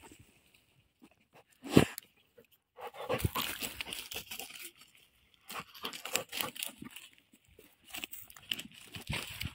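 A dog digging in dry earth and dry grass stalks: scratchy crunching and tearing in bursts of a second or so, with a single sharp knock about two seconds in.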